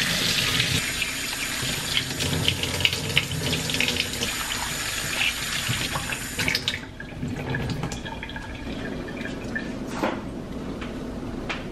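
Kitchen faucet running into ice cube trays in a steel sink, water splashing as it fills the cube wells. About two-thirds through the water stops suddenly, leaving quieter handling sounds and one short knock near the end.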